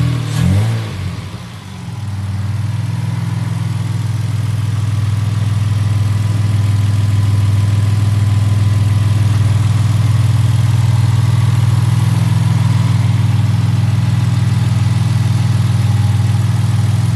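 Toyota 2JZ-GE straight-six, newly swapped into the car, revved briefly a few times and then settling to a steady, smooth idle; it stops near the end. The engine runs well, purring like a kitten.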